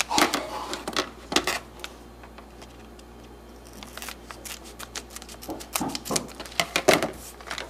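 Foil minifigure blind-bag being opened and handled: sharp crinkling and crackling in clusters, quieter for a couple of seconds in the middle.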